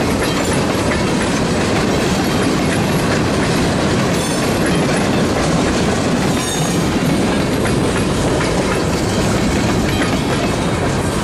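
Freight train's tank cars and a hopper car rolling past close by: a steady rumble of steel wheels on the rails, with clicks of the wheels over the rail joints.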